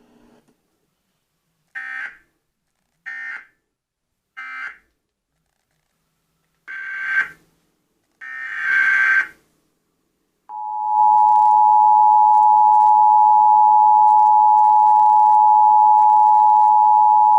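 Emergency Alert System tones: three short buzzy SAME data bursts, the end-of-message code, then two longer data bursts starting the next alert's header. About ten seconds in comes the steady two-tone EAS attention signal, loud and unbroken.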